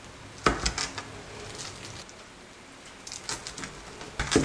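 Chef's knife pressed down through a block of brownie dough, the blade knocking on a plastic cutting board twice: about half a second in and again near the end. Softer crackles of plastic wrap come in between.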